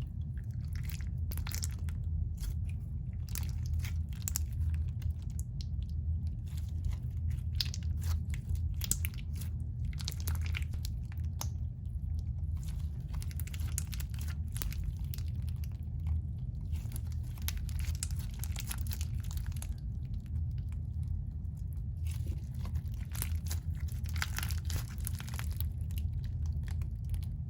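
Bead-filled crunchy slime being worked by hand, its beads rubbing and crackling against each other in a dense, irregular crunching, over a steady low hum.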